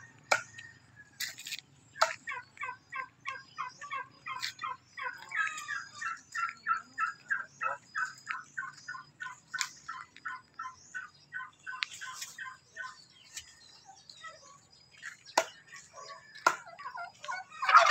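Domestic turkeys calling in a fast run of short, repeated notes, about three or four a second, as two toms square off to fight; the calls thin out near the end, with a few sharp clicks.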